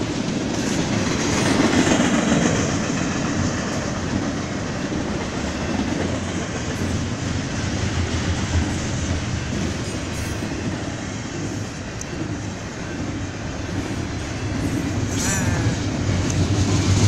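Double-stack intermodal freight train's container well cars rolling past: a steady, continuous rumble and clatter of steel wheels on the rails.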